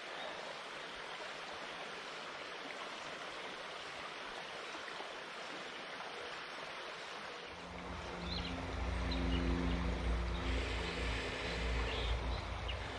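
Small creek flowing steadily. A bit past halfway, a low rumble with a faint hum comes in under it and grows louder.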